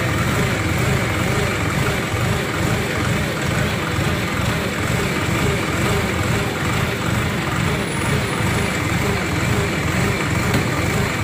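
Hydra crane's diesel engine running steadily at a low, even speed.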